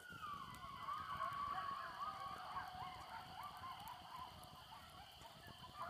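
A pack of coyotes howling and yipping, faint, many wavering calls that rise and fall and overlap one another. A steady high drone runs underneath.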